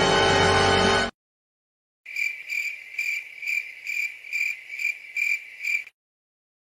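Cricket chirping sound effect, the stock gag for an awkward silence: a high, regular chirp about two and a half times a second for about four seconds. Before it, a music clip cuts off about a second in.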